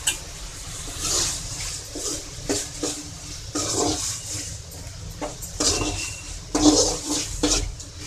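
Slotted metal spatula stirring and scraping chicken gizzard pieces through a thick, wet masala gravy in an aluminium kadai. It makes irregular wet swishing strokes over a steady hiss from the pan, with a sharp knock right at the start.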